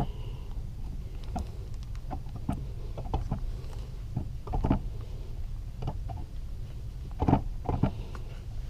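Light, irregular clicks and knocks of a Yamaha YZ250's crankcase half being worked into place against the other case half, with a few louder knocks about halfway through and again near the end, over a low steady hum.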